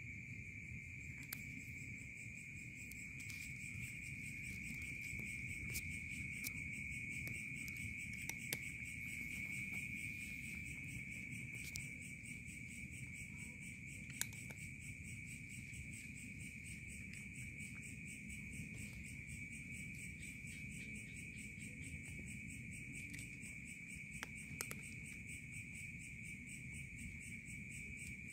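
Steady chorus of night insects, a continuous high trill, over a low background rumble, with a few scattered sharp clicks.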